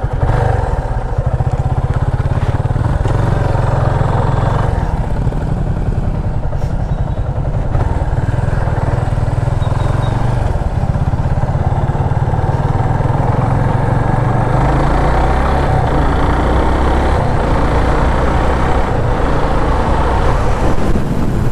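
Yamaha FZ25's single-cylinder engine running under way as the motorcycle rides along the road, with wind rushing over the microphone. The engine note shifts a little about five seconds in and again around fifteen seconds.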